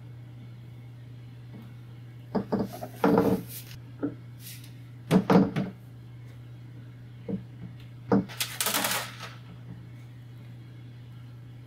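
Irregular clicks, taps and rattles of a nut driver and fingers working a metal fuel-line fitting on a plastic diesel tank, in several short clusters. Near the end comes a denser scraping rattle as plastic fuel tubing is handled onto the fitting. A steady low hum runs underneath.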